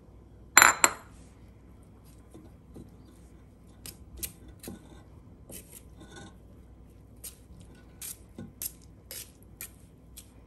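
A sharp metal clank with a brief ring about half a second in. Then a string of light taps and scrapes as a spoon works drained rice out of a perforated stainless-steel strainer into a pot.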